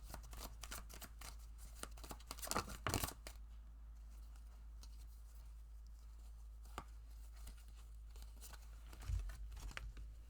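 A deck of tarot cards being shuffled, a rapid papery flutter of cards for about three seconds, then a few single card clicks and a soft low thump near the end.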